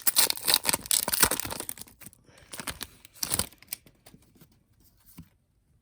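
Foil booster-pack wrapper being torn open and crinkled, dense crackling for about two seconds, then a few scattered crinkles that die away.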